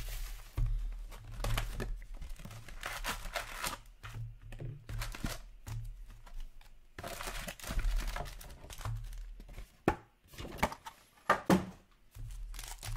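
A sealed cardboard box of hockey card packs being torn open and its foil packs pulled out and stacked, with tearing, rustling and crinkling. A few sharp clacks near the end.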